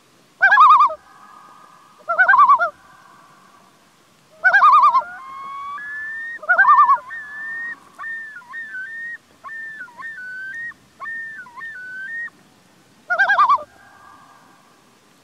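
Common loon calling: five short, loud, quavering calls spaced a couple of seconds apart, with a softer, thin whistled call dipping quickly in pitch from about five to twelve seconds in.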